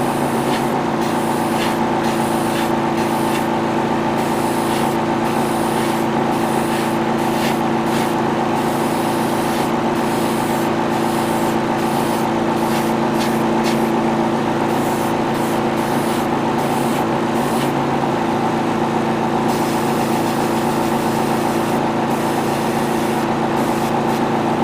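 Small airbrush compressor running steadily with a constant hum, under the hiss of air and paint spraying from the airbrush.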